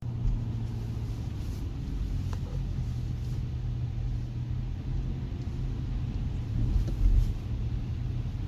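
A motor vehicle's engine running with a steady low rumble, slightly louder about seven seconds in.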